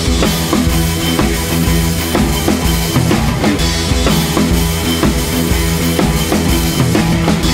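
Background music with a steady drum-kit beat, bass drum and snare.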